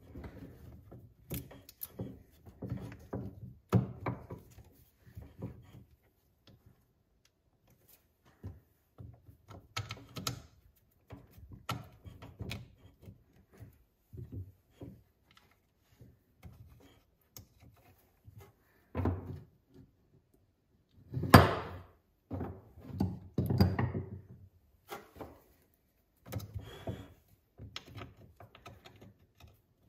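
A new rubber auger paddle being worked into place on a Honda HS520 single-stage snowblower's steel auger: irregular knocks, thunks and rubbing as it is pushed in and its bolt holes lined up, with one sharper knock a little past two-thirds of the way through.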